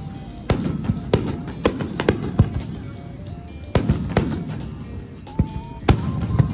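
Fireworks display: aerial shells bursting in a run of sharp, echoing bangs, with a lull in the middle. Music with a melody plays alongside.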